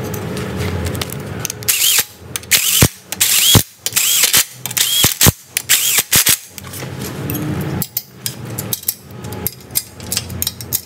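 A cordless power driver runs a bolt into a go-kart's rear bearing hanger in several short bursts, each whining up and down. From about eight seconds in, a hand ratchet clicks rapidly as the nut is tightened.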